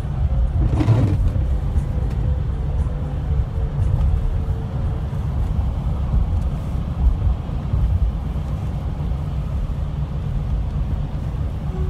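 Car driving along a wet road, heard from inside the cabin as a steady low rumble of engine and road noise, with a brief higher sound about a second in.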